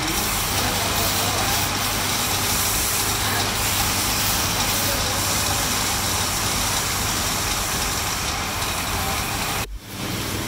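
Wood lathe running steadily, a constant low hum under a steady hiss, as a wooden chair spindle is turned; the sound cuts off abruptly near the end.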